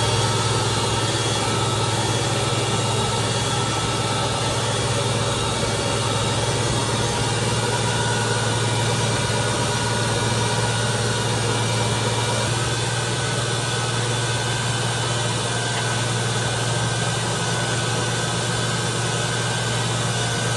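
An engine running steadily at an even speed, with no rise or fall in pitch.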